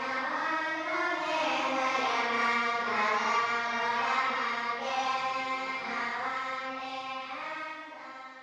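Buddhist monks chanting, a steady intoned chant held on nearly one pitch, fading away near the end.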